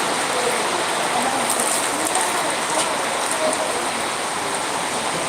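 Heavy rain falling steadily: a dense, even hiss of rain on surfaces.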